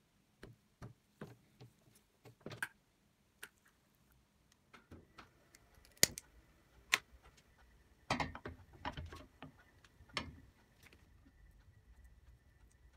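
A few soft knocks, then two sharp clicks about a second apart as a lighter is struck at a gas stove burner, followed by a clatter of metal on the stove grate as the cookie mould pan is set down.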